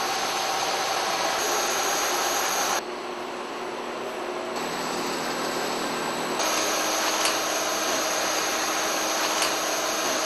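Steady machine drone and hiss of brewery equipment running. It turns quieter and changes tone about three seconds in, then comes back up about six seconds in, with a couple of faint ticks near the end.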